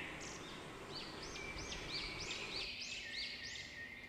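A bird singing: a quick series of repeated high, arching chirps, about three a second, starting about a second in, over a steady background hiss.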